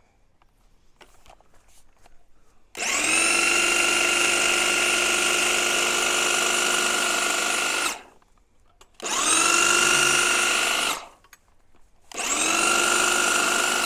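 Bosch AdvancedHedgeCut 70 corded electric hedge trimmer run in three bursts as it cuts into a privet hedge. Each burst spins up quickly to a steady, high-pitched whine: the first lasts about five seconds, the second about two, and the third starts about twelve seconds in.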